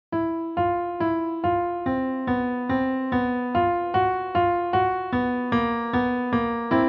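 Piano playing a simple beginner piece that moves in half-steps. It starts from silence right at the beginning, with evenly spaced detached notes and two-note chords, about two a second, each struck and then fading.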